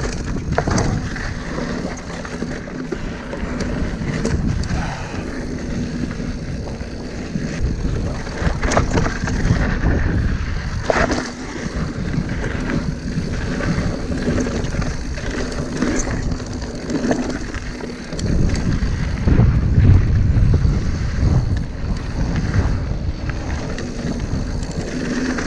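Mountain bike descending a dirt trail: continuous tyre rumble over dirt and rocks, wind buffeting the microphone, and sharp knocks and rattles from the bike over bumps, with a rougher, louder stretch near the end.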